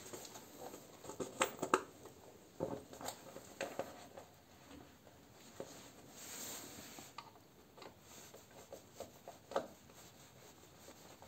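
Phillips screwdriver turning a screw by hand into a cardboard panel: faint, irregular small clicks and rubbing scrapes.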